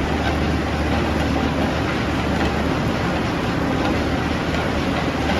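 Sawmill machinery running steadily: a constant mechanical noise with a low, even hum underneath.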